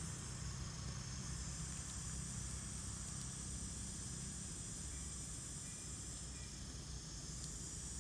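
Steady insect chorus, a high, even buzz with no breaks, over a low background rumble.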